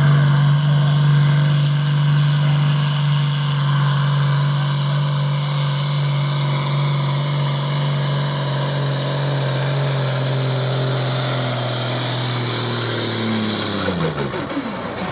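A pulling tractor's engine running hard at high revs under load, its pitch sagging slowly, then its revs falling away sharply near the end.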